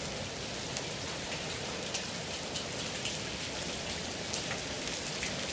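Heavy rain pouring steadily: a dense hiss with scattered sharp ticks.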